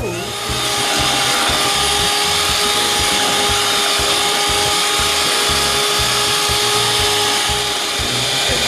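Electric blender running steadily with a high motor whine as it purées mango into sweetened cream.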